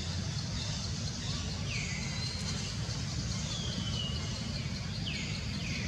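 Forest ambience: a steady high insect hiss over a low rumble, with four falling whistled calls from a bird, one longer one near the middle and two close together near the end.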